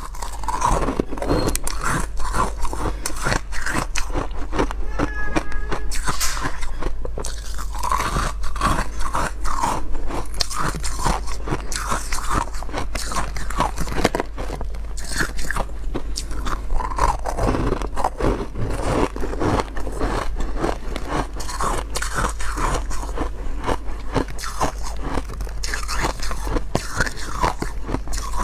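Close-miked biting and chewing of frost-coated frozen ice balls: crisp crunches, many a second, with the ice cracking and grinding between the teeth.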